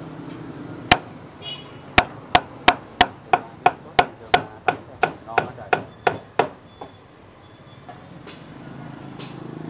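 Knife chopping braised pork on a cutting board: one chop about a second in, then a quick run of about fourteen even chops, about three a second, tailing off after six seconds.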